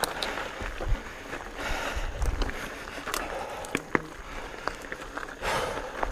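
Mountain bike rolling over a rocky trail: tyre noise, with scattered sharp clicks and rattles from the bike and a few low thumps as it goes over rocks.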